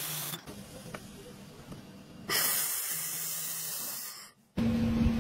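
Hissing of a handheld laser welding head at work, in short cut-together takes: a softer hiss, then a louder hiss that stops abruptly about four seconds in, then, after a brief gap, a hiss with a steady low hum.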